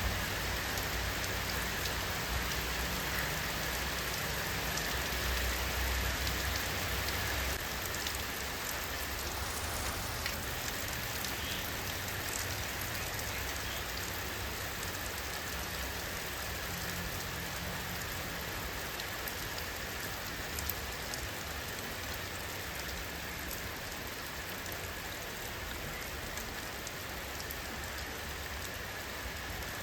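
Steady rainfall: many small drop ticks over an even hiss, with a low rumble underneath.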